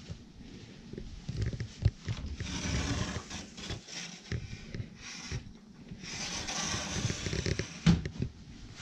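Handling noise from a handheld camera moving through a small tatami room: low rumbles and uneven knocks, with a sharp knock about two seconds in and another near the end. There are two scraping hisses of a second or two each, starting about two and six seconds in.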